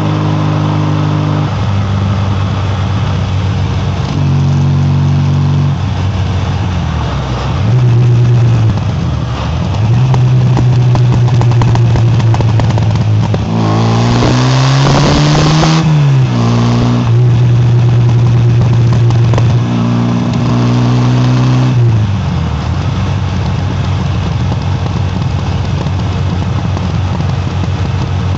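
Classic MG Midget's four-cylinder engine and exhaust running on the move, recorded at the rear bumper, its note stepping up and down several times as the speed changes. About halfway through, an oncoming car rushes past with a brief rise and fall in pitch.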